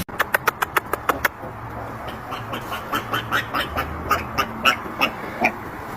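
A quick run of sharp clicks for about a second, then an animal giving short, repeated calls, about three a second.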